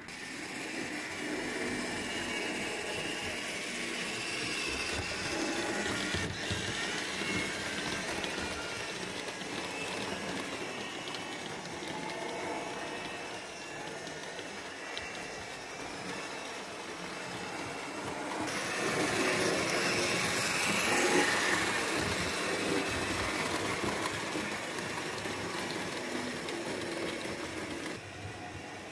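HO-scale model trains running on the layout: a steady rolling rattle of small wheels over the track with many fine clicks, growing louder for a few seconds about two-thirds of the way through.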